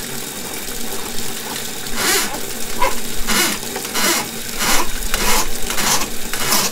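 Tap water pouring steadily into a laundry tub and running down its freshly snaked drain. From about two seconds in, a gurgling surge comes roughly every two-thirds of a second as the drain gulps water and air.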